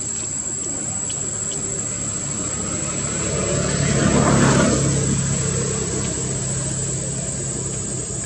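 A motor vehicle passing, swelling to its loudest about four seconds in and then fading, over a steady high-pitched insect drone.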